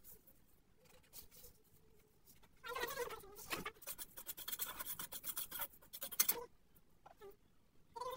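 Metal spatula scraping and stirring in a steel kadhai, a run of short, gritty scrapes starting about two and a half seconds in and stopping near six and a half seconds.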